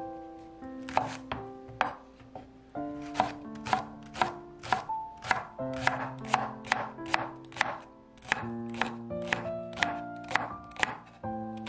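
Chef's knife slicing a Korean leek (daepa) into rounds on a wooden cutting board: a steady run of sharp chops, about three a second. Background music with held notes plays underneath.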